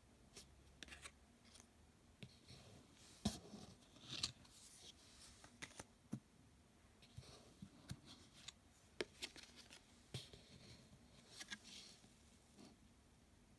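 Quiet handling of a deck of Lenormand cards: cards slid against each other and set down, a faint, irregular run of soft taps and short swishes, the sharpest tap about three seconds in.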